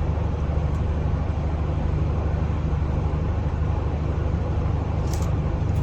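Steady low machine hum, unchanging, with one light click about five seconds in.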